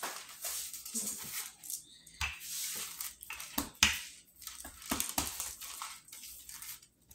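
Wooden rolling pin being rolled back and forth over pizza dough on parchment paper: scraping and rustling of the paper, with a few knocks, the sharpest a little under four seconds in.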